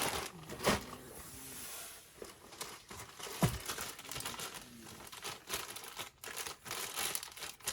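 Product packaging crinkling and rustling as items are handled, with scattered light knocks.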